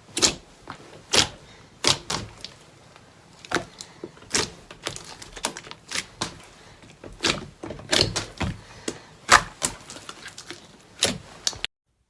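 Slime being pressed and squeezed, air pockets popping in sharp, wet clicks about once a second, with smaller crackles between them. The sound cuts off suddenly near the end.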